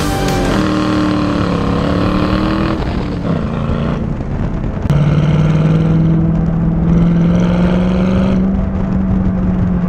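Ford Mustang engine running under way: the revs fall over the first few seconds, then from about five seconds in the engine holds a steady note, with rushing noise over the camera.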